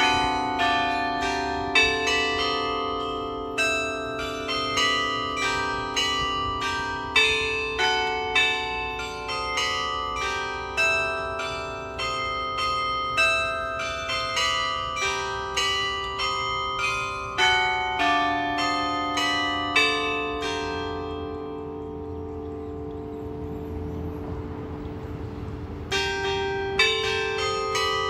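The 37-bell carillon of a glockenspiel clock tower playing a melody in a steady run of struck, ringing notes. The tune breaks off for about five seconds near the end, then starts again.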